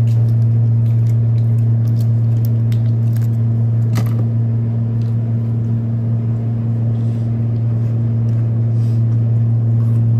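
A person eating a cordon bleu burger: short biting and chewing clicks, with a sharp click about four seconds in, over a loud, steady low hum.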